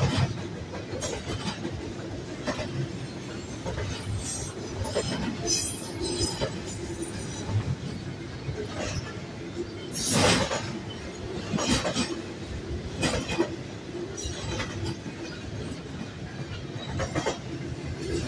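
Double-stack intermodal well cars rolling past: a steady rumble of steel wheels on rail with irregular clacks as the wheels cross rail joints, the loudest about ten seconds in. A brief high-pitched wheel squeal comes about five seconds in.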